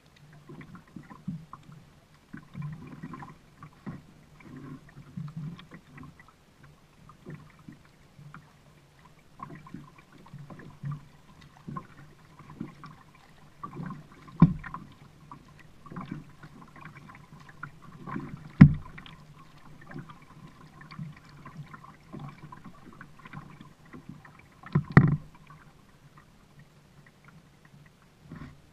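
Kayak being paddled: a run of small splashes and light knocks from the paddle and hull, with three sharp knocks standing out, the loudest about two-thirds of the way through.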